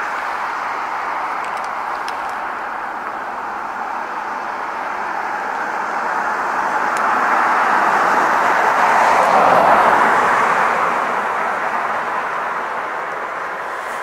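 Steady road traffic noise, with a car passing that grows louder to a peak about ten seconds in and then fades away.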